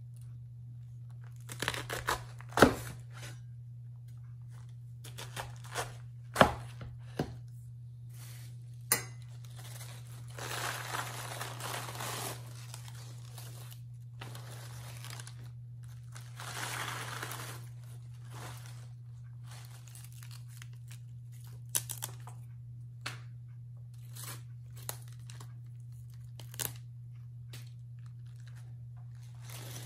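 A cleaver splitting heads of napa cabbage on a cutting board, with a few sharp knocks of the blade through the core onto the board. The halves are then torn apart by hand: two stretches of leaves and core tearing, each about two seconds long, followed by light handling clicks. A steady low hum runs underneath.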